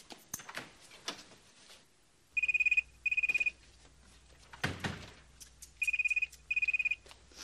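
Telephone ringing in short pulsing trills, two rings, a pause, then two more. The ringing is preceded by light clicks and knocks, and a single loud thump falls between the two pairs of rings.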